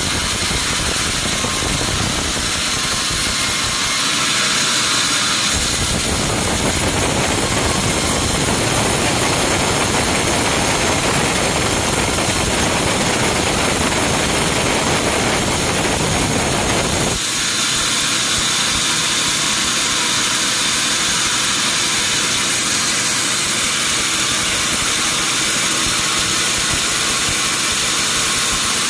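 Sawmill machinery running loud and steady with a strong hiss, the sound changing abruptly twice early on and once more about seventeen seconds in.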